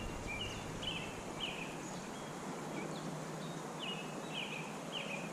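A bird chirping repeatedly: short, high, falling notes over and over, over a steady background hiss.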